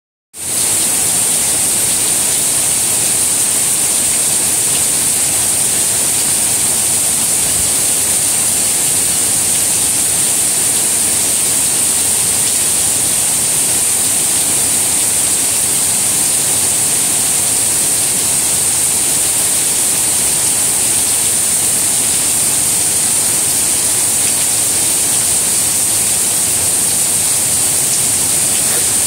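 Steady rain falling on garden plants and grass, an even hiss with a strong high edge to it.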